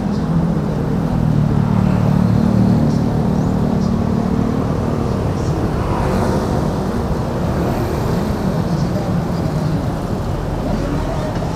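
Road traffic on a busy city street: motor scooters and cars passing close by, a steady engine drone that is loudest in roughly the first five seconds.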